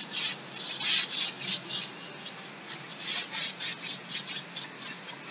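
A duster wiping chalk off a chalkboard: a quick run of back-and-forth rubbing strokes, about three a second.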